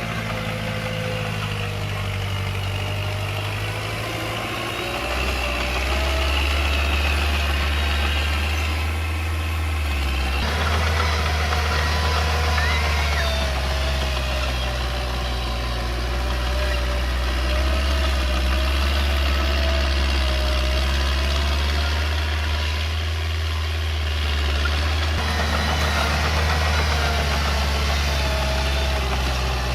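Diesel engine of small earthmoving machinery running steadily, its low hum growing louder about five seconds in.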